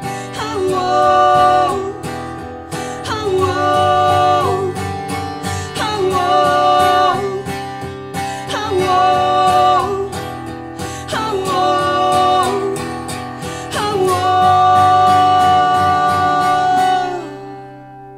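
Acoustic folk band playing a song's outro: strummed acoustic guitar under long, held wordless sung notes in repeated phrases. The song ends about 17 seconds in and the last chord rings out.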